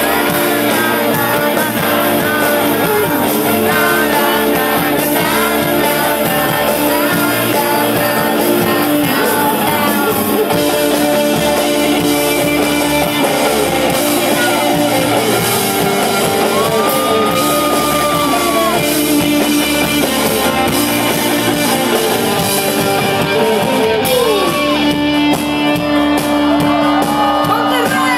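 A rock band playing live, with a singer over guitars and a held low note, loud and continuous.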